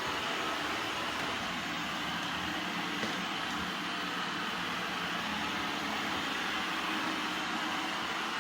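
eufy X10 Pro Omni robot vacuum running with a steady, even whir.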